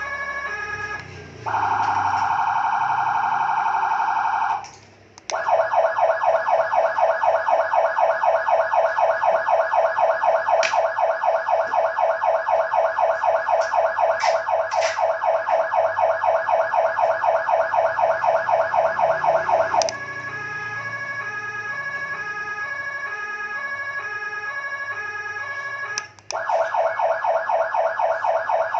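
Electronic vehicle siren, Whelen-style and euro tones, stepping through its modes. It starts on an alternating two-tone pattern over a steady high tone and switches to a fast warble. After a short break it plays a rapid pulsing tone of several pulses a second for a long stretch, goes back to the two-tone pattern about twenty seconds in, and returns to the pulsing tone near the end.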